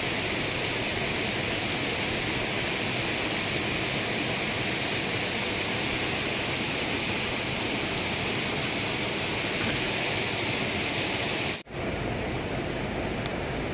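Steady rush of a waterfall, an even unbroken noise of falling water. It cuts out for an instant near the end, then carries on.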